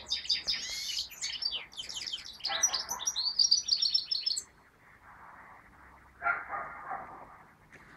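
European goldfinch singing: a fast, twittering song of high chirps and trills that stops about four and a half seconds in. A brief, lower sound follows near the end.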